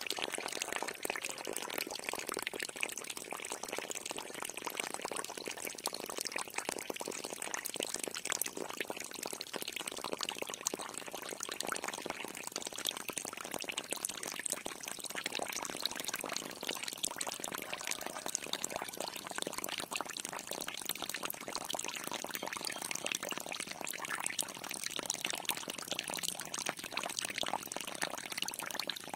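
Water pouring and splashing steadily from a homemade toy tractor's small water pump.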